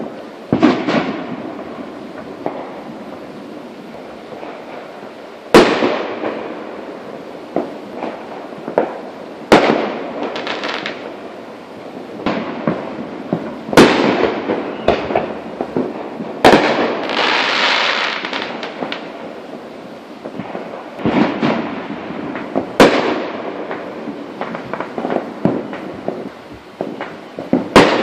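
Aerial fireworks bursting: about half a dozen sharp booms a few seconds apart, each trailing off into crackle and echo, with a longer hissing crackle about halfway through.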